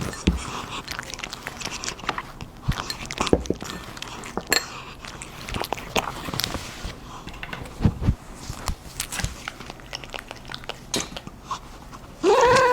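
A cat eating: repeated wet biting and chewing with small smacking clicks. Near the end comes a short, loud, rising vocal call.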